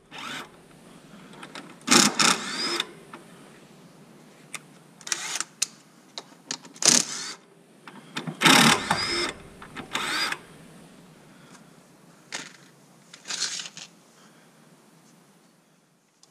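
Ryobi cordless driver with a socket running in about seven short bursts, its motor whine rising in the longer runs, as it backs out the Loctite-set 10 mm pulley bolts on a supercharger.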